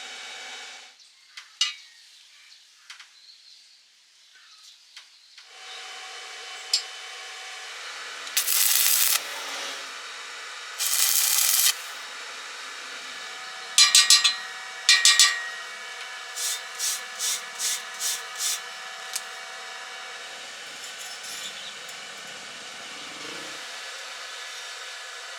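Metalworking at a stick-welding bench: a steady machine hum, two short hissing bursts of about a second each, then clusters of sharp metallic taps and a quick run of about seven strokes at roughly three a second.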